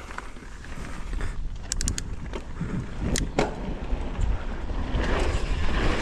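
Mountain bike riding down a dirt trail: tyre rumble and wind buffeting the microphone, with a quick run of sharp clicks about two seconds in and louder trail noise building from about five seconds.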